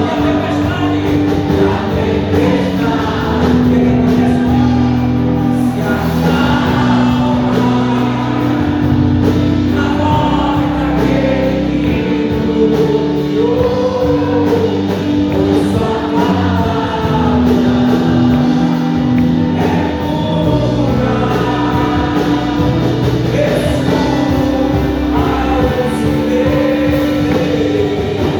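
Gospel worship music: a choir and singers over held keyboard chords and a bass line.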